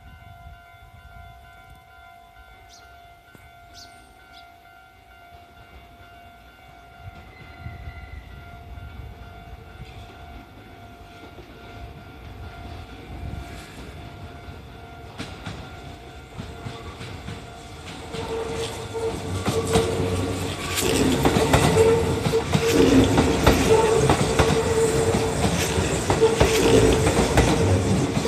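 A Japanese level-crossing warning bell rings steadily while a Kintetsu 1233-series electric train approaches. About two-thirds of the way in the train reaches the crossing and passes, growing loud with rhythmic wheel clatter over the rail joints.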